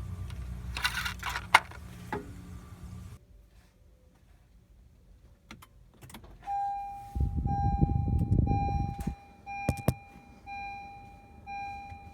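Honda Civic's four-cylinder engine idling, then switched off about three seconds in, with keys rattling just before. After a pause the car's warning chime beeps over and over, about one and a bit beeps a second, with a low rumble and two sharp knocks partway through.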